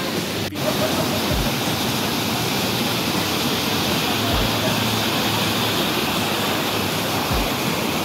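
White water of a rocky mountain stream cascading over boulders close by: a steady, loud rush of water.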